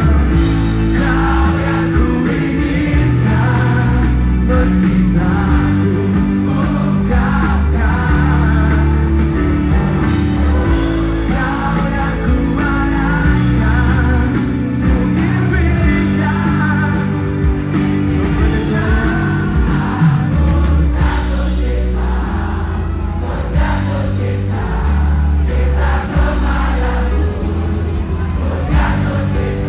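A pop-rock band playing live, with singing over sustained bass notes that change in steps.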